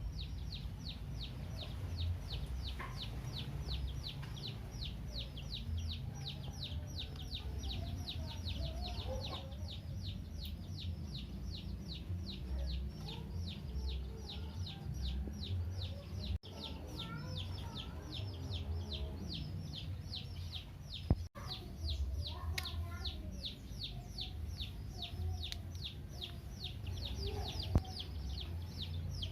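Baby chicks peeping nonstop: a fast run of high, falling cheeps, about four a second, over a low steady rumble.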